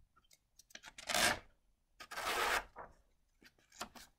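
A picture book's paper page being turned by hand: two rustling sweeps of paper about a second apart, then a few light taps near the end.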